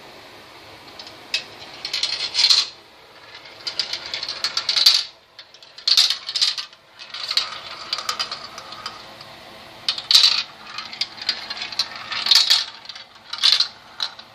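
Marbles rolling and clattering down a marble run, a series of rattling bursts of quick clicks with short pauses between them.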